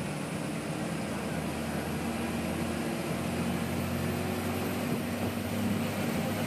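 A KSRTC Sarige bus's diesel engine drones steadily with road and tyre noise, heard from inside the passenger cabin. It grows a little louder about halfway through.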